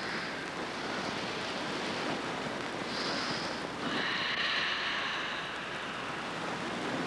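Forceful Sanchin-kata breathing driven from the diaphragm: two hissing breaths, a short one about three seconds in and a longer one from about four seconds, over a steady background hiss.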